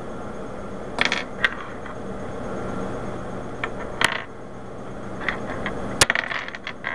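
Loose plastic Rubik's Cube pieces clicking and clacking as they are handled and set down on a table: a couple of sharp clicks about a second in, another about four seconds in, and a sharp click at six seconds followed by a quick run of smaller clacks.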